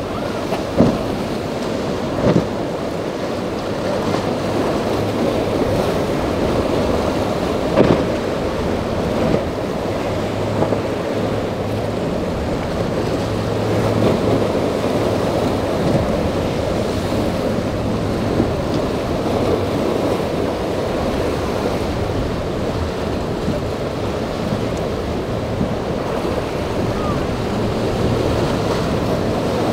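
Rough surf and breaking waves with wind buffeting the microphone, and the outboard engines of a Nor-Tech centre console with triple Mercury 350s humming faintly underneath, steadiest for several seconds in the middle. A few short, sharp thumps stand out near the start and about eight seconds in.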